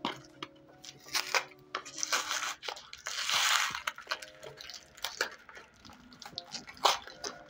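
Plastic courier parcel sealed with packing tape being handled and pulled open: crinkling and crackling of plastic and tape, with a longer tearing rustle about three seconds in.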